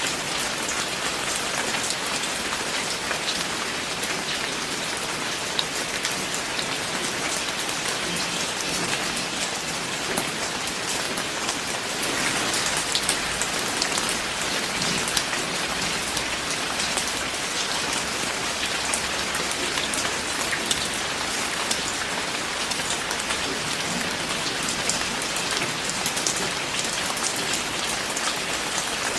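Steady rain falling, an even hiss with many sharp little ticks of individual drops hitting a surface.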